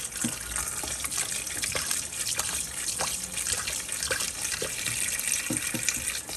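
Kitchen tap running in a steady stream into a stainless-steel bowl of meat in the sink, the water splashing as the bowl fills.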